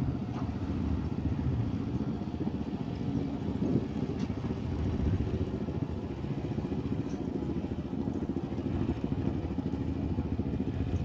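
ATV engine running steadily: an even low rumble.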